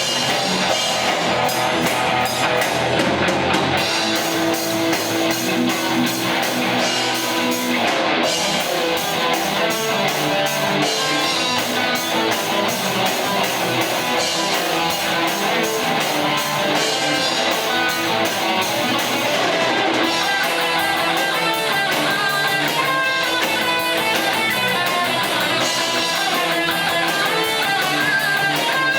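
Live rock band playing an instrumental passage, with strummed and electric guitars over a drum kit.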